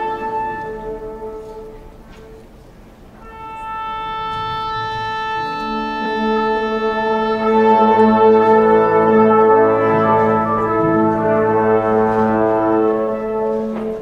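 Orchestral brass playing long held chords. The first chord dies away, a new one enters about three seconds in, and more instruments join and swell before it fades near the end.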